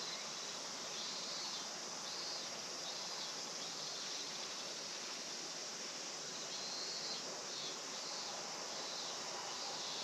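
Insects chirping in a chorus: a steady high-pitched shrill with pulsed chirps coming and going, over a low even hiss.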